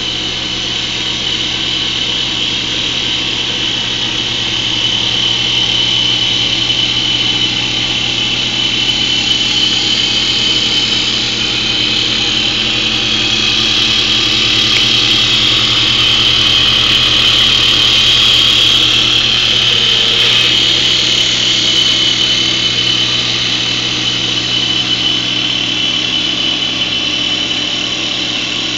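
A TC650E MotionCat CNC wood lathe cutting a wooden spindle: a steady high-pitched machine whine over the noise of the cut, a little louder through the middle stretch.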